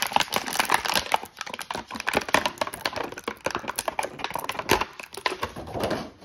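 Thin clear plastic bag crinkling and crackling in the hands, a dense run of sharp crackles as a small toy piece is worked out of it, stopping near the end.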